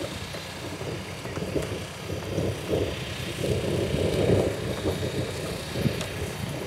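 Wind buffeting the microphone: an uneven, gusting low rumble with no distinct tones, swelling somewhat in the middle.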